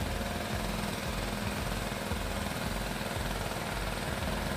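Boat motor running steadily, a low rapid throbbing engine note.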